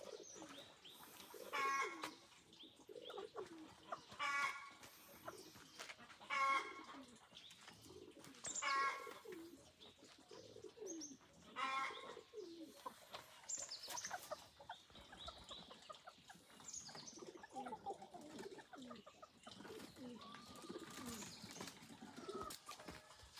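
Chickens calling and clucking: a short, higher call comes five times, about every two to three seconds, in the first half, over many short, low, falling clucks.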